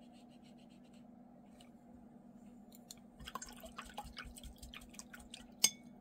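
Faint scratching of a watercolour brush on paper, then from about three seconds in a run of small clicks, taps and water drips, with one sharper click near the end, as the brush is rinsed in a glass water jar. A low steady hum sits underneath.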